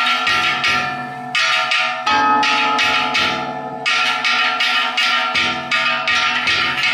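Ishidori festival cart's taiko drum and hand-held kane gongs struck together in a loud, fast rhythm of about four to five strikes a second, the gongs clanging and ringing between strokes. The pattern breaks off briefly twice.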